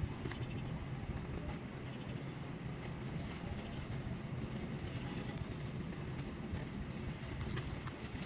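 Steady low rumble of a moving vehicle, even throughout with a few faint ticks.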